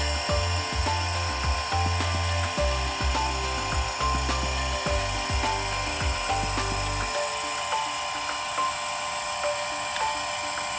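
Valvcon ADC electric valve actuator's geared motor running steadily, turning the valve from closed toward fully open.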